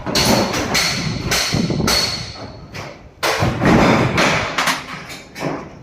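Heavy hammer blows striking the masonry of a school building being demolished by hand. The blows come in a run of about two a second, with a short pause partway through.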